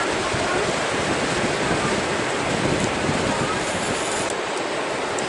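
Steady rushing of surf on the beach, with wind.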